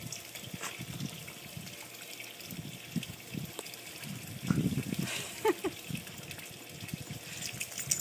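Steady trickle and splash of swimming-pool water running, with irregular soft rustles and thumps and a brief squeak about five and a half seconds in.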